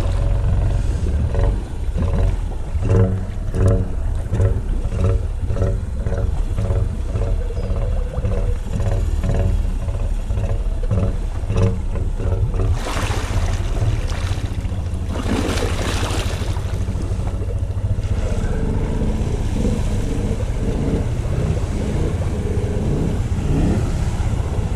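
Honda 520 ATV's single-cylinder engine running steadily as the quad wades through deep creek water, with water churning and sloshing around it. Two loud rushes of splashing water come around the middle.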